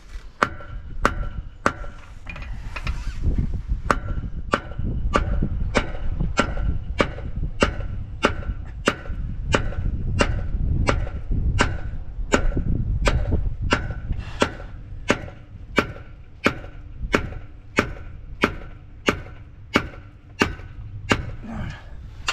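Steady hammer blows on a seized crane ram pin, about two a second, each strike a sharp metal-on-metal clank with a brief ring, over a low rumble. The pin is being driven out and is not budging.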